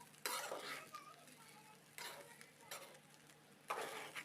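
Spatula stirring and scraping egg fried rice around a frying pan: four short scraping strokes, over a faint sizzle.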